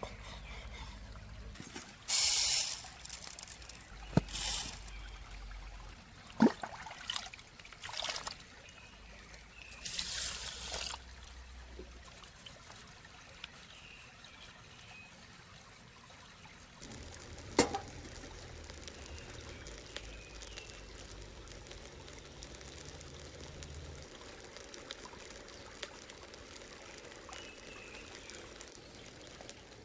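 Liquid poured in several short splashing spurts over the first ten seconds or so, with a few sharp clicks and knocks between them; later a steady faint background hiss with a single sharp click.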